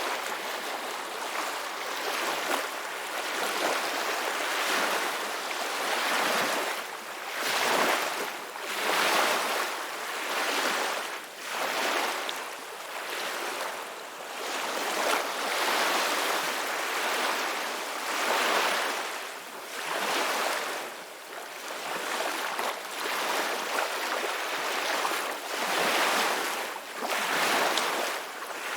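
Ocean waves breaking and washing on the shore in a continuous hiss that swells and eases every couple of seconds.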